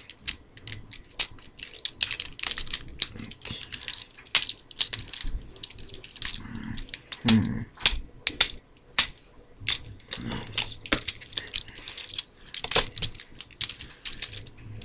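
Plastic joints and panels of a Transformers Optimus Prime action figure clicking and snapping irregularly as it is twisted and folded by hand.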